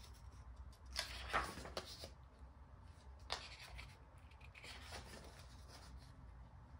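Paper and card rustling and rubbing as album packaging and photocards are handled, in a few short scrapes about a second in, at about three seconds and near five seconds, over a faint steady low hum.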